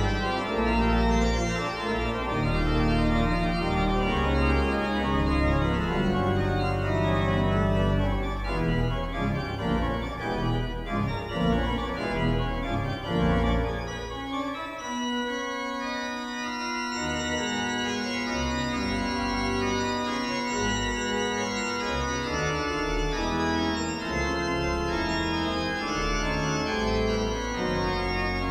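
Pipe organ playing a fast fugal dance, with quick running notes over a deep pedal bass line. About halfway through, the deep bass drops out for a few seconds under a held note, then the full sound returns.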